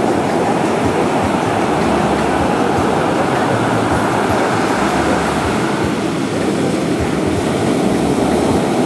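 Steady, loud rumbling noise of wind buffeting the microphone.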